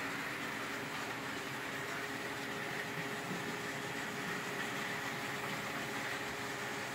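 OO-scale electric model train running around the layout: a steady whir of its motor and wheels on the track, with no changes.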